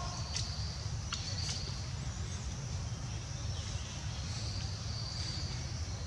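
Woodland ambience: a steady low rumble under a constant high insect hiss, with short high bird chirps and trills scattered through and a few sharp clicks in the first two seconds.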